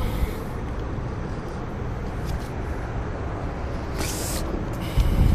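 Steady low outdoor background rumble. About four seconds in comes a brief rustling handling noise, and near the end a second, louder one with a low thump.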